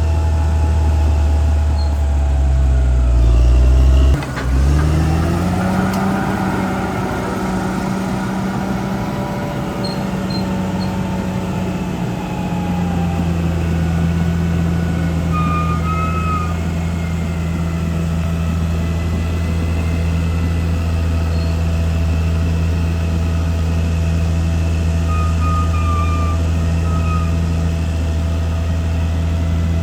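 CAT D6R bulldozer's diesel engine running under load, with a brief dip about four seconds in, then revving up over the next couple of seconds and holding steady.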